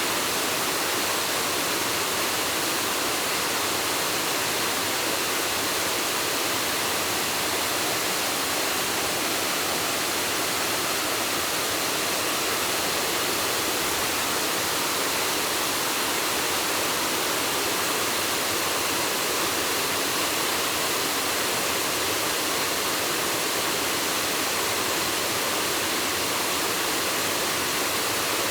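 A waterfall rushing steadily: an even hiss of falling water with no change in level.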